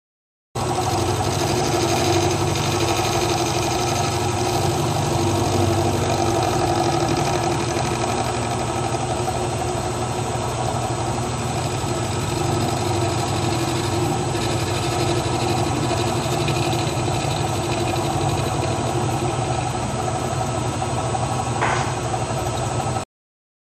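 Vertical milling machine running, its end mill cutting down the width of a billet connecting rod's small end: a steady machine hum that starts and cuts off abruptly, with a brief higher-pitched squeal near the end.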